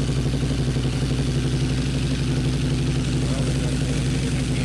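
Harley-Davidson V-Rod Night Rod's liquid-cooled V-twin idling steadily through aftermarket Tab mufflers, with a fast, even pulse and no revving.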